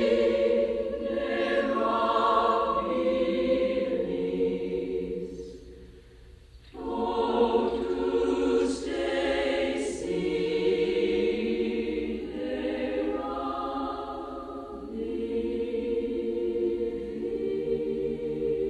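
Background music: a choir singing held chords, fading almost to nothing about six seconds in, then coming straight back.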